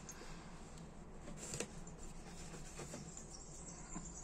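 Faint handling sounds of fingers rubbing and cleaning a small lighter part, with a few light clicks, the clearest about a second and a half in, over a low steady background hum.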